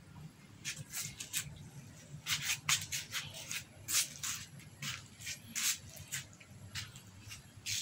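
Cats eating dry kibble from shallow trays: a run of short, irregular crunches and scrapes, a few a second, over a low steady hum.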